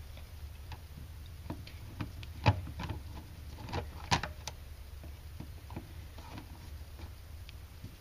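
Hand screwdriver turning the centre screw of a plastic receptacle cover plate: irregular small clicks and scrapes of the blade in the screw head, with two sharper clicks about two and a half and four seconds in.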